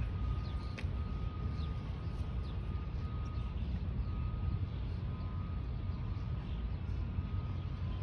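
Open-air ambience on a baseball field between pitches: a steady low rumble with faint bird chirps and one faint click about a second in.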